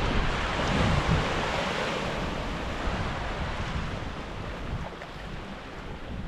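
Surf breaking and washing up the sand, swelling at the start and slowly fading, with wind rumbling on the microphone.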